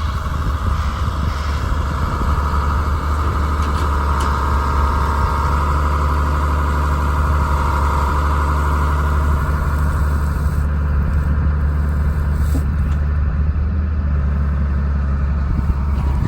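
Truck engine running steadily with a strong low rumble and a higher droning hum that fades away about two-thirds of the way through.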